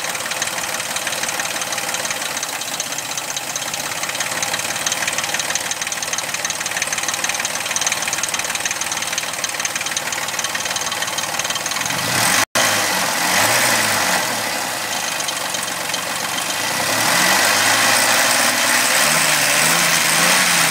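Suzuki Vitara's 2.0-litre 24-valve V6 running at idle with a fast, even ticking noise, the sound the owner calls bad. After a brief break about twelve seconds in, the engine is revved up and down, and then held at higher revs near the end.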